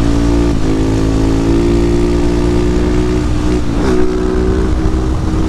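Husqvarna 701 supermoto's single-cylinder engine running hard at high revs under acceleration, its pitch dropping briefly and climbing again twice, about half a second in and near four seconds, as with quick upshifts. Wind noise from the helmet microphone runs underneath.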